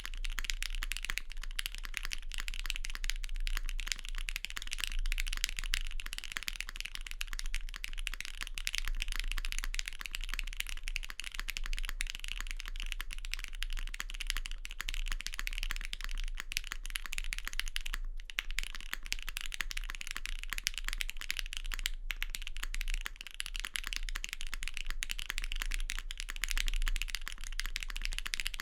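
Continuous fast typing on an E7-V2 mechanical keyboard with a polycarbonate case and plate, lubed Gateron Box Ink linear switches and GMK ABS keycaps: a dense stream of key clacks, with brief pauses about 18 and 22 seconds in, over a low steady hum.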